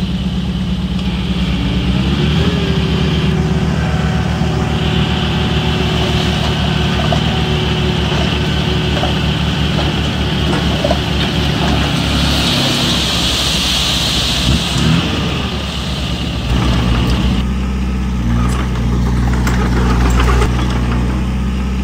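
Diesel engine of a heavy construction machine running steadily, its note changing about two seconds in and dropping lower about sixteen seconds in. A hiss rises over it for a few seconds about twelve seconds in.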